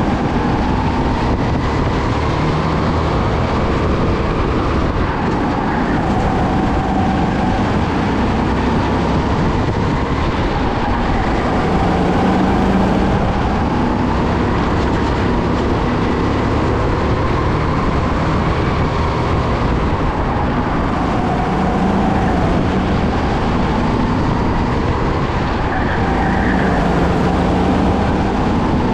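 Racing go-kart heard from onboard at speed. Its motor note climbs and dips in waves every few seconds as it accelerates and slows through the corners, over a steady loud rush of noise.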